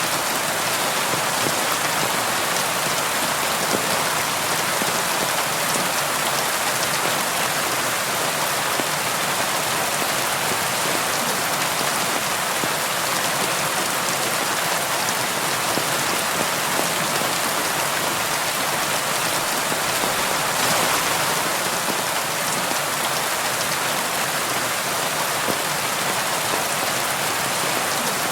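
Steady rain falling on window glass: an even hiss full of fine drop ticks.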